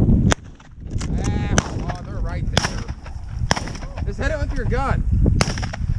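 A string of sharp shotgun reports, about five spread over several seconds, with wind rumbling on the microphone and grass brushing it throughout.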